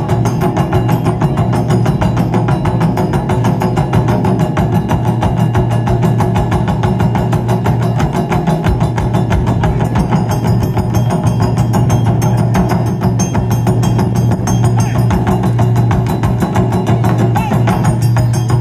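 Taiko drum ensemble playing: many barrel drums struck with sticks together in a fast, driving rhythm, loud and without a break.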